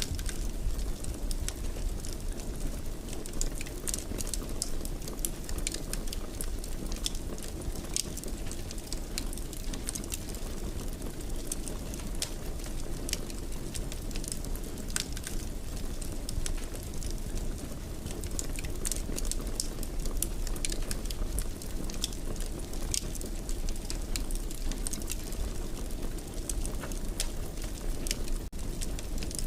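Wood fire crackling in a fireplace: a steady low rumble of burning with frequent, irregular sharp pops and snaps.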